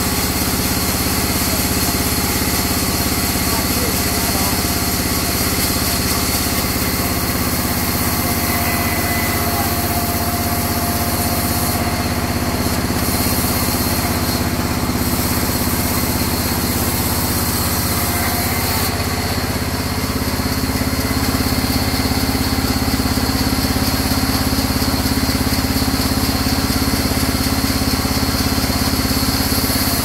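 Sawmill band saw running steadily as a crooked mahogany log is fed through its blade, giving a constant machine drone with steady tones. It grows slightly louder about two-thirds of the way through.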